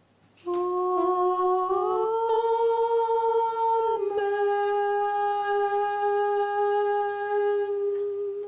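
A woman singing a slow, wordless melody in long held notes. She starts on a low note, glides up about two seconds in, settles a little lower at about four seconds, and holds that note until just before the end.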